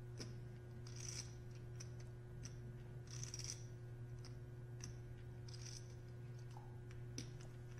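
Poker chips clicking in short, soft runs as a player handles them at the table, over a low steady hum.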